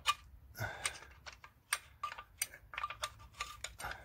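Irregular small clicks and taps of fingers working a small metal fuel-injector hold-down clamp loose between the injectors, the clamp knocking against the surrounding engine parts.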